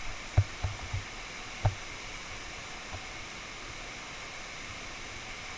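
Steady rushing hiss of a large waterfall close by. Four brief low thumps on the microphone fall in the first two seconds.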